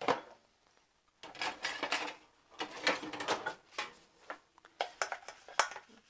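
Plastic food containers and dishes clicking and clattering against the wire racks of a dishwasher as they are loaded. A knock at the start, a short pause, then a long run of quick knocks and rattles.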